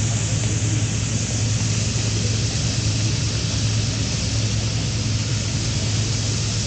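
Fire engine pump running steadily with a low drone, under the even hiss of water spraying down as simulated heavy rain.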